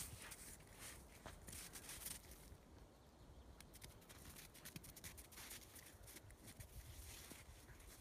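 Faint crunching and scratchy rustling of snow as a Norwegian elkhound rolls on its back and scrambles in it, briefly quieter about three seconds in.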